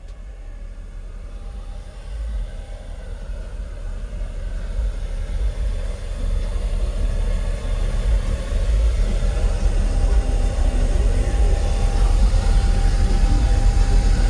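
Deep, loud rumble from the custom car-audio show truck, growing steadily louder.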